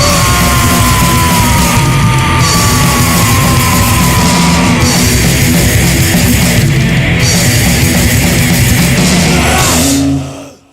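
Punk/hardcore band playing loud and distorted on guitar, bass and drums, with a held high note sliding slowly down in pitch over the first few seconds. The music stops abruptly near the end.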